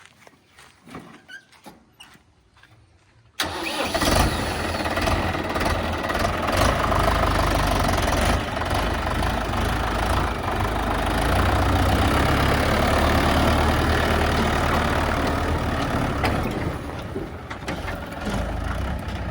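A diesel engine of the heavy machinery, either the backhoe or the tractor, running loud and steady. It cuts in abruptly about three and a half seconds in, after a quiet stretch with faint clicks, and eases off slightly near the end.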